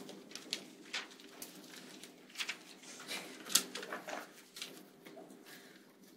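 Students writing answers on paper: scattered faint clicks and rustles of pens and paper over a steady low hum.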